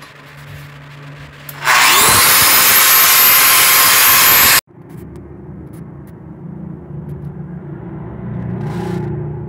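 Angle grinder with a sanding disc spinning up with a rising whine about a second and a half in, then running loud and steady against a steel blade made from truck leaf spring, cutting off suddenly about three seconds later. A quieter low hum follows.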